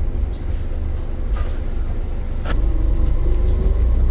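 Scania N230 single-deck bus running on the road: a steady low engine rumble with a few sharp rattles, then a tone that rises in pitch and gets louder from about halfway through as the bus picks up speed.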